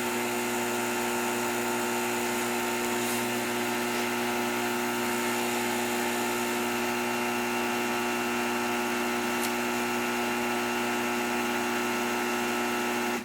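A small motor running with a steady, unchanging hum made of several steady tones, cutting off suddenly at the end.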